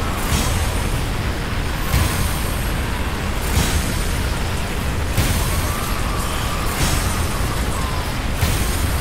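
Tornado wind noise with a heavy low rumble, loud and continuous, surging in strong gusts about every second and a half.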